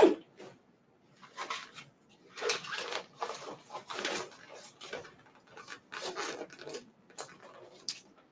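Full-wrap vinyl back cover of a wheelchair being worked into place by hand: a sharp knock, then a run of irregular raspy rubbing and zipping strokes.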